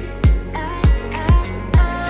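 Background music: a deep kick drum hitting about twice a second under a melody.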